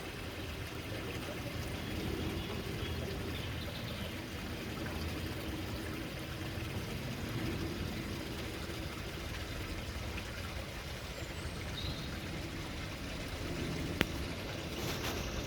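Water running and trickling steadily into a garden koi pond. A single sharp click comes near the end.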